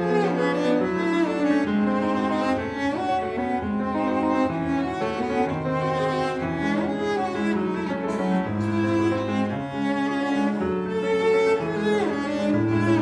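Cello bowed in a slow melody of long held notes, dropping to lower notes about eight seconds in and again near the end.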